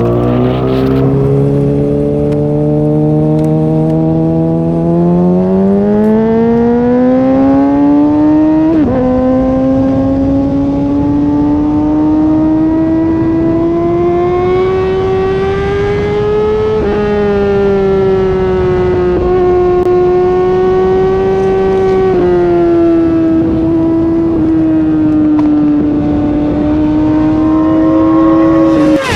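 Sport motorcycle engine pulling hard at high revs. Its pitch climbs steadily for about nine seconds, drops sharply at a gear change, then holds high with small rises and falls as it runs near top speed, with steady wind rush underneath.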